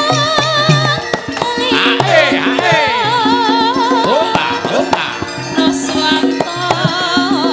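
Javanese gamelan playing with a sinden singing over it in a wavering line with strong vibrato, the kendang drum beating a steady pattern beneath.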